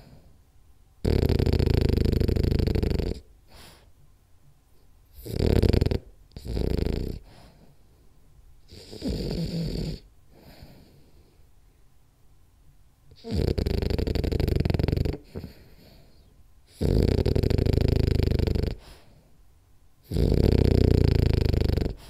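French bulldog snoring in its sleep: about seven snores at uneven intervals, some short and some about two seconds long, with quiet gaps between.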